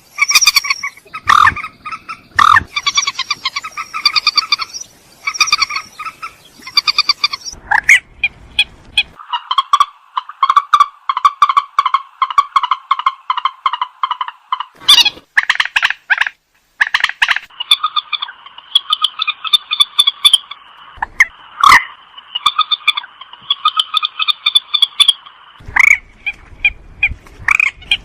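Rail (Indonesian mandar) calling: fast runs of repeated harsh, croaking notes, broken by a few short pauses.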